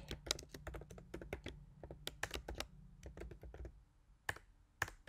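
Computer keyboard typing: a quick run of keystrokes for about three and a half seconds, then a few single key presses near the end.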